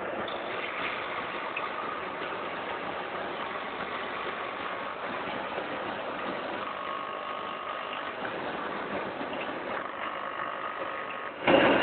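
Vertical auger-filler packing machine for flour running steadily, with a short, loud noisy burst near the end.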